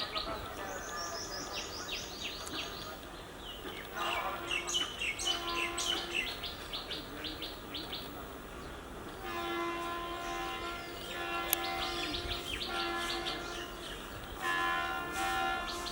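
WAP-1 electric locomotive's horn sounding in a series of blasts, two short ones about four seconds in and then several longer ones. Birds chirp throughout.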